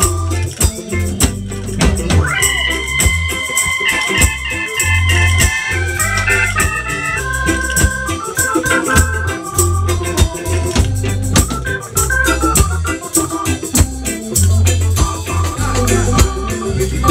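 Live ska band playing amplified: bass and drums under a held, stepping melody line, with a tambourine shaking.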